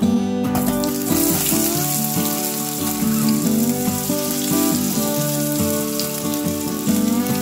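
Potato chunks sizzling in hot oil in a stainless steel pan. The sizzle starts about half a second in, as the potatoes go into the oil, and holds steady. Background guitar music plays underneath.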